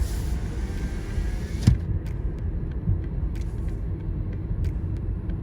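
Car driving, heard from inside the cabin: a steady low road-and-engine rumble, with a hiss for the first second and a half and a single sharp thump, likely a bump in the road, at about a second and a half in.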